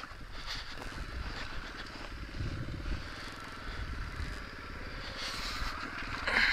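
Nitro Sky 125cc pit bike's single-cylinder four-stroke engine running as the bike rides along a dirt track, its firing pulses steady, with a hiss over it.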